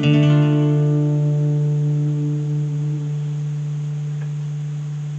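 Final guitar chord of the song, struck at the start and ringing out, its upper notes fading over a few seconds, above a steady held low note that stays on.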